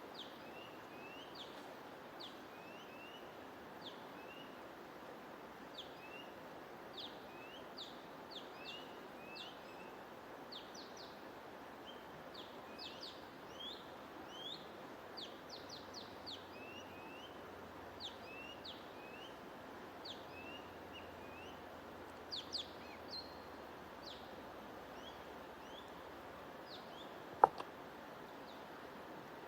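Small birds chirping repeatedly in short, quick high chirps over a steady even hiss of white noise. A single sharp click sounds near the end.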